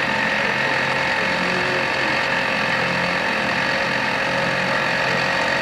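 Boat motor running steadily with an even, unchanging hum.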